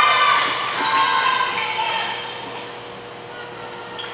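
High-pitched shouting voices in a gym, loudest at the start and dying away over the first two seconds, with a faint steady hum underneath.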